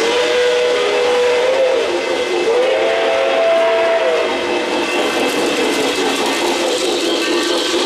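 O-gauge model steam locomotive's electronic sound system blowing its whistle twice, a long blast followed by a slightly longer one, each sliding up at the start and down at the end. The steady running noise of model trains continues under it.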